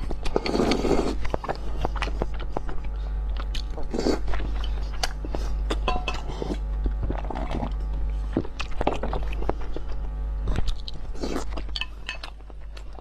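Close-miked eating of spicy instant noodles in broth: slurping, chewing and mouth smacks, with chopsticks clinking against the bowl and a drink taken from a mug around the middle. The sound fades out near the end.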